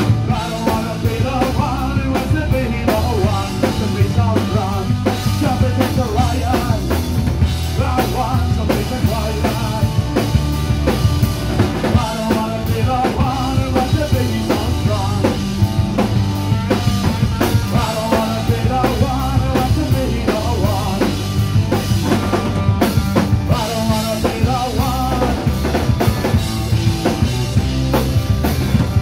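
Live rock band playing: electric guitars, bass guitar and a drum kit driving a steady beat with bass drum and snare, loud throughout.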